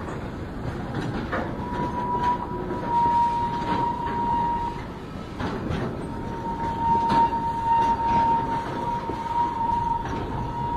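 Loaded railway tank cars rolling slowly past, their wheels clacking irregularly over rail joints, with a steady low rumble. A steady high-pitched whine runs over it, dropping out for about a second around the middle.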